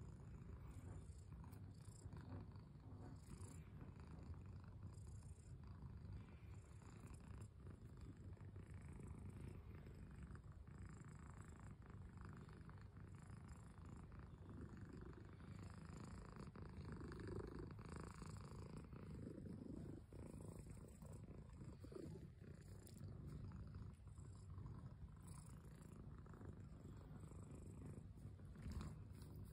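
Domestic cat purring low and steady while its head and chin are stroked, a contented purr.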